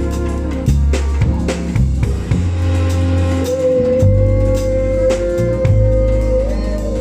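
A live band playing during a sound check: drum kit with bass drum and snare hits over a bass line, with a held higher note through the second half.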